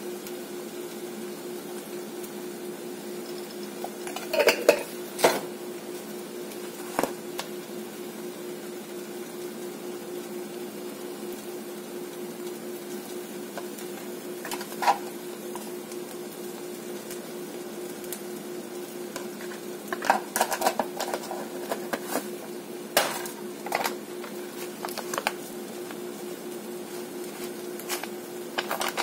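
Clinks and knocks of spice jars, containers and a spoon being handled beside a cast iron skillet, in short clusters over a steady hum.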